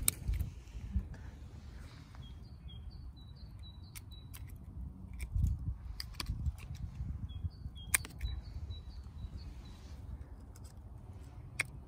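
A small songbird repeating a short phrase of quick high notes, in two runs. Sharp single clicks every few seconds from pruning secateurs snipping off thin branch tips.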